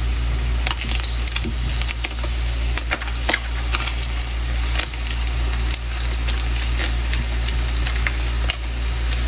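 Slices of luncheon meat sizzling in hot oil in a nonstick frying pan, with a steady hiss and scattered clicks and scrapes from a slotted spatula turning them against the pan. A low steady hum runs underneath.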